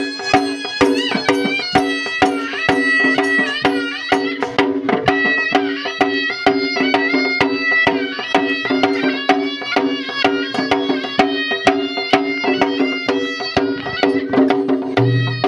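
Khasi traditional dance music: a reed pipe plays a winding melody with bending notes over a steady low drone and regular drum strokes.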